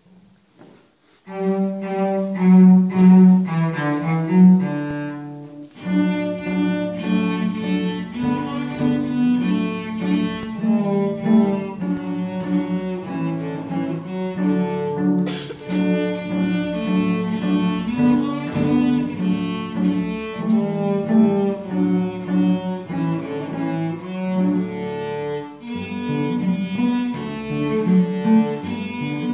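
Two cellos playing a duet. The music starts about a second in and fills out with lower notes about six seconds in.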